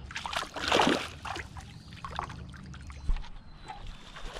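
Water splashing as a bass is let go over the side of the boat, loudest about half a second in, followed by water dripping and a single thump about three seconds in.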